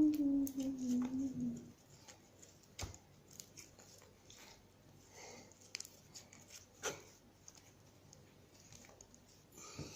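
A voice humming a note that slides slowly downward for about the first second and a half, then soft scattered clicks and rustling handling noises.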